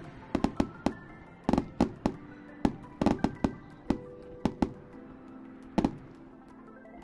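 Fireworks display going off: an irregular run of sharp bangs and cracks, some in quick clusters of two or three, with music playing underneath.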